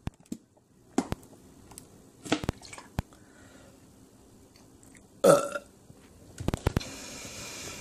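A person's loud burp about five seconds in, lasting about half a second and dropping in pitch. Sharp clicks and knocks come before and after it, and there is a steady hiss near the end.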